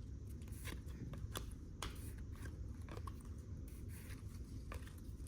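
Football trading cards being flipped through one by one from a freshly opened pack: soft, scattered flicks and slides of card stock over a low steady hum.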